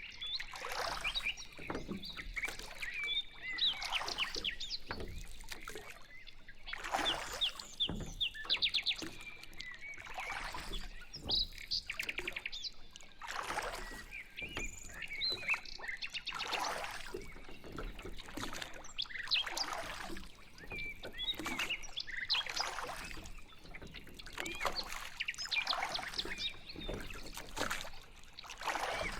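Water swishing from a pedal boat's strokes, a surge about every three seconds, with songbirds chirping throughout and a couple of rapid trills.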